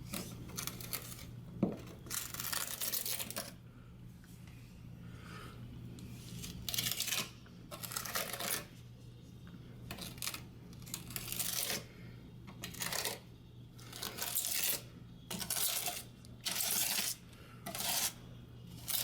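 Wet grout being spread and scraped across ceramic wall tiles: about a dozen short, gritty scraping strokes, coming about once a second in the second half.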